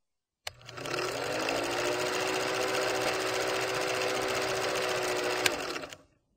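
Film projector sound effect: a steady rapid rattle with a motor hum that climbs briefly as it starts, then a sharp click near the end before it fades out.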